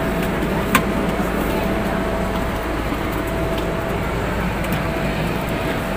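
Children's plastic ride-on wiggle cars rolling over a tiled floor: a steady rumble of hard plastic wheels, with a faint steady hum under it and one sharp click less than a second in.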